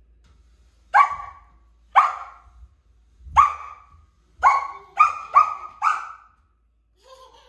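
Samoyed puppy barking at a stool being pushed across the floor: seven sharp barks, the first three about a second apart, then a quicker run of four near the end.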